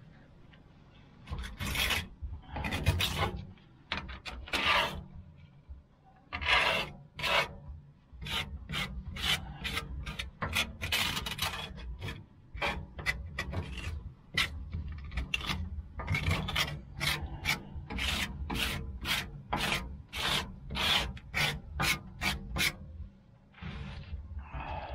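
A stiff hand brush scrubbing back and forth over the greasy steel floor of a Lang 84 Deluxe smoker's cooking chamber, working softened grease and sludge loose to clear a clogged drain. Rasping strokes, a few slow ones at first, then a quick run of about two a second.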